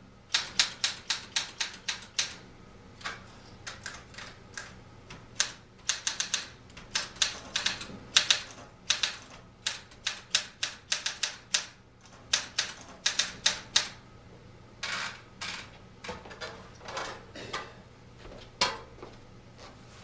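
Olympia SM-9 manual portable typewriter being typed on: quick runs of sharp key strikes, several a second, with short pauses between runs. In the second half some softer, longer mechanical sounds come between the strikes.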